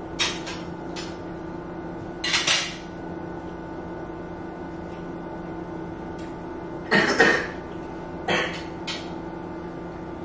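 Forks clinking and scraping on dinner plates as two people eat: a few short, separate clinks over a steady low hum.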